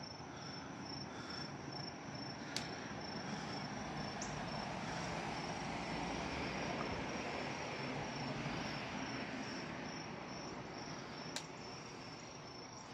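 Insects chirping in a steady high, pulsing trill, under a broad rushing noise that swells through the middle and fades. Two sharp clicks, about two and a half seconds in and near the end, are scissors snipping tomato stems.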